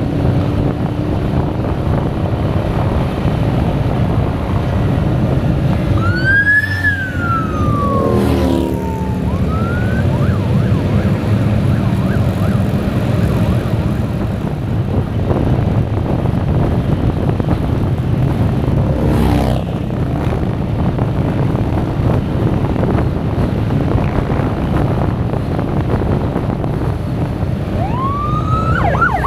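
Steady motorcycle engine and wind noise while riding at speed, with a police motorcycle siren wailing as sheriff's motor officers pass at high speed: one rise and fall about six seconds in, and another rising wail near the end. Passing motorcycle engines sweep by briefly about eight and nineteen seconds in.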